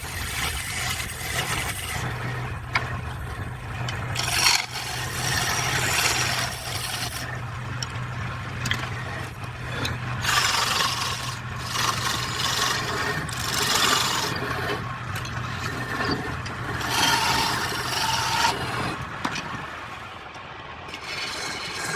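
Wood lathe running with a steady motor hum while something scrapes against the spinning wood in repeated passes of a second or two each. The motor hum stops near the end.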